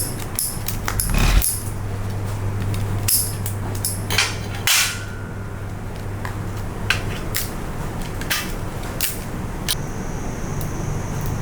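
Irregular sharp knocks and clacks of kitchen utensils on hard surfaces during cooking, about one every half second to a second, over a steady low hum.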